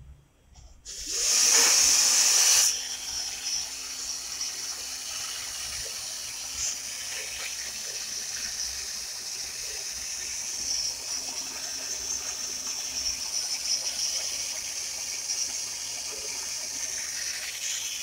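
Small homemade fan, a little electric motor run off a phone charger turning styrofoam blades, running with a steady whirring hiss and a faint low hum. About a second in there is a loud rushing burst lasting about a second and a half.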